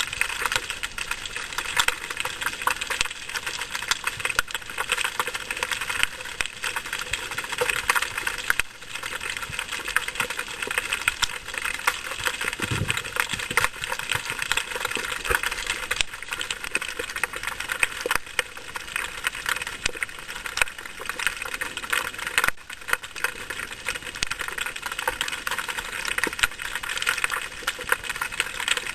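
Dense, continuous underwater crackling: countless fine clicks and snaps in the sea around the diver, with a brief low sound about halfway through.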